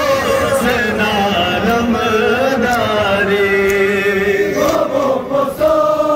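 Large crowd of men chanting a Muharram mourning lament (nauha) together in unison, holding long, wavering notes.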